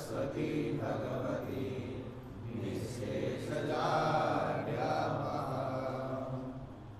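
Chanted mantra-style invocation over a steady low held tone, fading toward the end.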